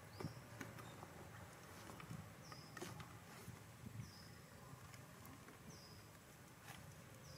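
Near silence: a faint background with a few scattered soft clicks and a faint short high chirp that repeats about every one and a half seconds.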